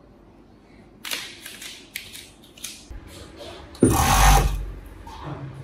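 Cloth rustling as fabric is handled, then an overlock sewing machine running in a short, loud burst about four seconds in.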